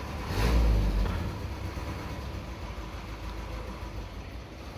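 Low, steady rumble of vehicle engines idling, with a louder swell of rumble and hiss in the first second that then fades.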